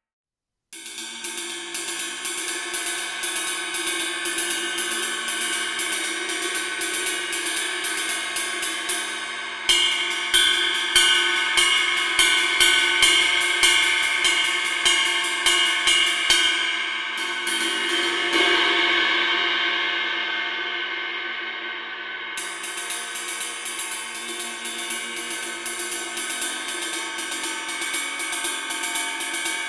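Synergy Zircon cymbal played in a fast, even pattern of strikes with a long shimmering ring. About ten seconds in, harder accented strikes begin; around seventeen seconds one hard strike is left to ring and fade for about five seconds before the fast pattern resumes.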